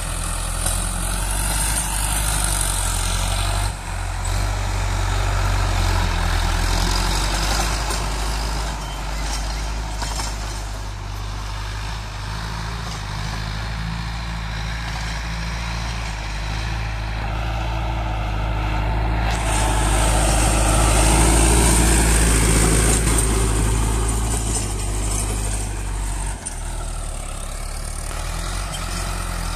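Tractor engine running under load while pulling a rotary tiller through the soil, getting louder and quieter as it moves, loudest about three-quarters of the way through.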